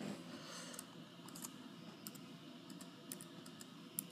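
Faint, irregular keystrokes on a Mac laptop's keyboard as a password is typed in, with a click on the trackpad near the end.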